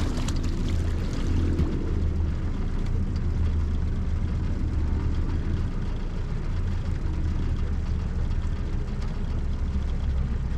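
A boat's motor running with a steady low hum.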